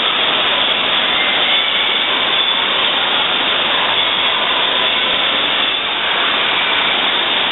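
Water rushing down a water slide and over a water-play structure, a loud, steady, even roar.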